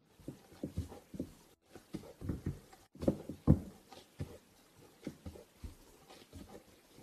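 Gloved hands kneading soft bread dough in a glazed earthenware bowl: irregular dull pats and squishy thumps as the dough is pushed, folded and pressed against the bowl, the loudest thump about three and a half seconds in. The sound cuts out briefly twice.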